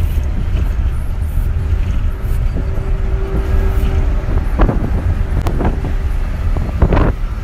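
Low, steady road and engine rumble heard from inside a moving car driving alongside a semi-truck, with a faint steady hum for a couple of seconds in the middle and a few brief knocks near the end. No truck horn is blown.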